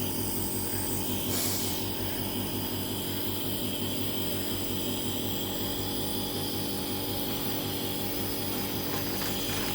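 Nebulizer's small electric compressor running with a steady, even hum. A short hiss comes about a second in.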